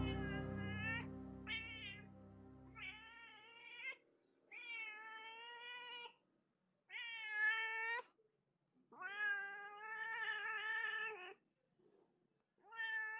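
Domestic cat meowing repeatedly: seven drawn-out meows with short gaps between them, most a second or more long and the longest over two seconds. Background music fades out during the first few seconds.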